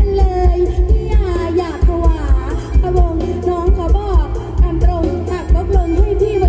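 Live band music played loud through a concert PA: a woman sings a Thai Isan song over a steady kick-drum beat and bass.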